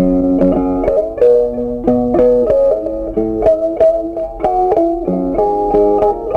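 Background instrumental music: a melody of plucked string notes in quick succession.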